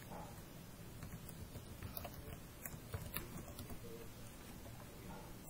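Faint computer keyboard typing: a dozen or so separate, irregularly spaced key clicks over a low steady hum.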